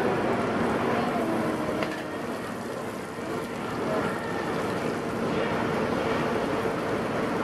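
Steady hiss of oil sizzling on a hot round roti griddle, with a metal spatula scraping across its surface near the start and a short click a little under two seconds in.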